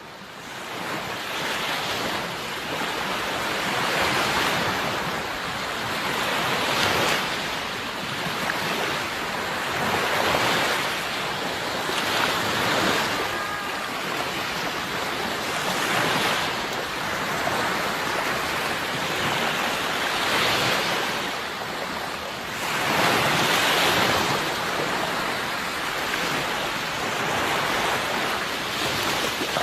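Sea waves washing in and drawing back, a steady rushing that swells every three seconds or so. The sound fades in at the start.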